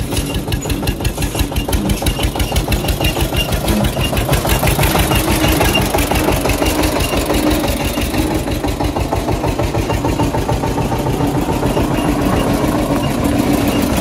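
Diesel tractor engine running steadily at idle with a rapid, even chugging beat.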